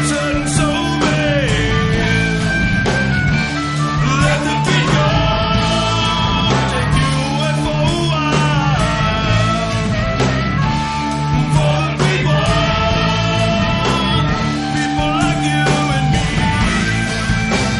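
Rock music with electric guitar, drums and bass, and a singing voice over it.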